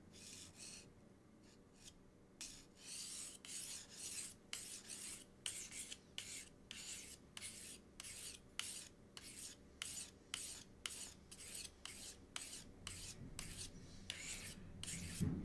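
Ceramic knife blade drawn along a diamond file sharpener in a long run of quick, short rasping strokes, starting about two seconds in. The strokes are restoring the dulled edge of the ceramic blade.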